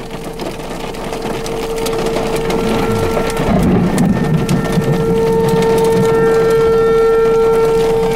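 Outdoor tornado warning siren sounding a steady tone, growing louder and fuller over the first few seconds. A low rumble joins about three and a half seconds in, over rain on the vehicle's windshield.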